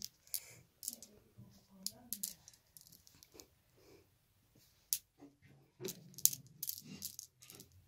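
Small glass marbles clicking against each other as they are scooped up and tossed in the hand in a jacks-style pick-up game: a run of sharp, irregular clicks, closest together near the end.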